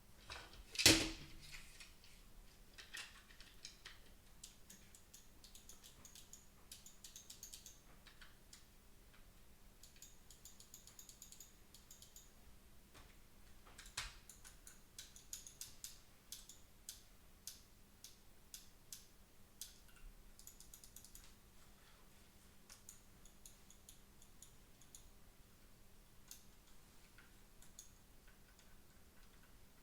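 Small plastic clicks and ticks from handling a disassembled computer mouse and pressing its buttons onto the microswitches, with one louder knock about a second in and another sharp click about halfway. The left button reaches its microswitch only when pressed hard because its plastic sits slightly too high.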